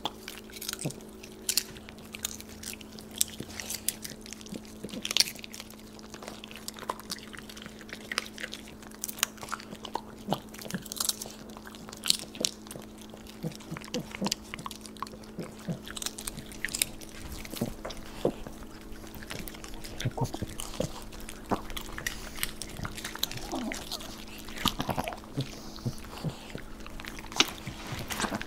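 Dogs crunching and chewing popcorn: a long, irregular run of sharp crunches. A steady low hum runs underneath.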